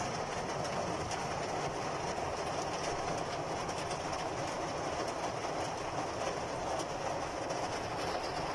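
Heavy rain drumming on the roof and glass of a parked car, heard from inside the cabin as a dense, steady patter.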